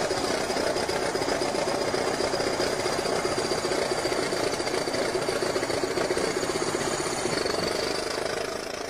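An engine running steadily, with a thin high whine over it that rises slightly near the end.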